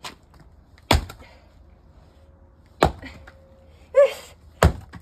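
An axe splitting firewood: four sharp chopping strikes about a second or two apart, the second and third the loudest. A short pitched cry about four seconds in.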